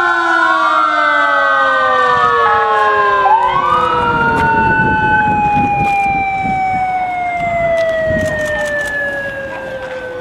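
Emergency-vehicle sirens from a fire engine and police cars sounding together in overlapping rising and falling wails. About three seconds in, one sweeps up again. The tones then slide slowly down in pitch and fade near the end.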